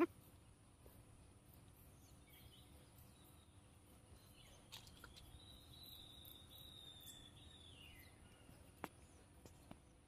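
Very quiet woodland ambience with a faint, steady, high insect buzz. About five seconds in, a faint long whistle holds one pitch for a few seconds and then drops away. A few faint clicks come near the end.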